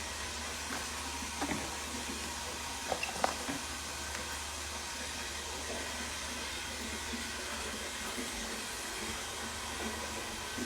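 Steady hissing background noise with a low hum underneath, and a few faint ticks about one and a half and three seconds in.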